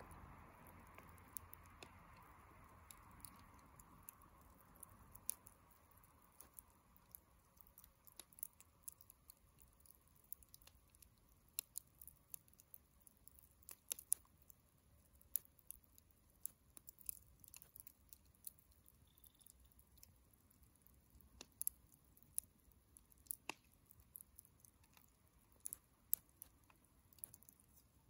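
Wood bonfire burned down to embers, crackling with faint, irregular pops and snaps, a few sharper than the rest. A soft hiss fades away over the first few seconds.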